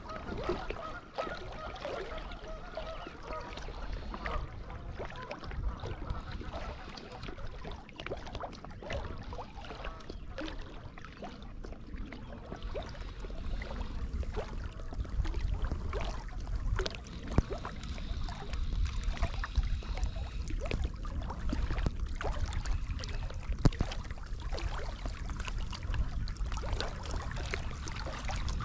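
Steady low wind and water noise with scattered knocks while a large pike is played from a float tube, and a few bird calls near the start.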